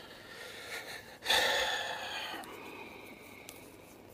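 A man's sudden loud breath out about a second in, fading away over about a second.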